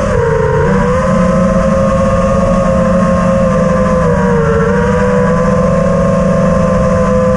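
Four brushless motors of a 4S FPV quadcopter (Emax Eco 2207 1900kv) spinning their props in flight, a loud buzzing whine whose pitch dips and recovers a little with throttle, around one and a half seconds in and again about four and a half seconds in. Heard through the drone's onboard camera mic, with a low rumble of wind and frame vibration underneath.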